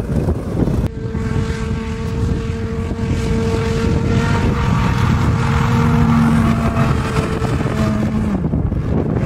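Wind on the microphone, then from about a second in a small leisure hovercraft's engine and fan drone steadily as it travels over grass. The pitch shifts a little partway through and drops near the end as it eases off.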